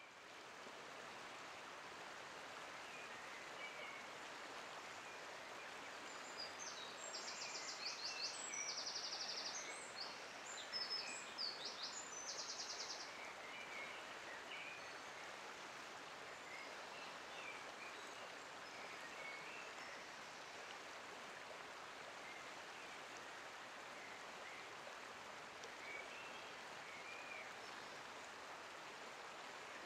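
Outdoor ambience: a steady background hiss, with a small songbird singing several rapid, high trilled phrases about a quarter of the way through, and faint scattered chirps elsewhere.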